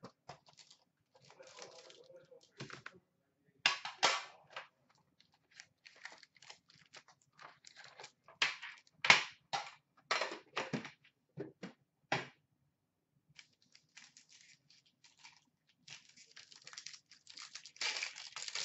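Foil-wrapped Upper Deck hockey card packs crinkling and rustling as they are handled and lifted out of a metal tin, with sharp irregular clicks and knocks. Near the end comes a denser run of crinkling as a pack is worked open.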